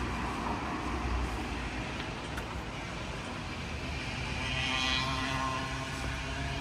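Road traffic on a wet street: a steady low rumble, with a passing car's tyre hiss and engine swelling up about four to five seconds in and fading again.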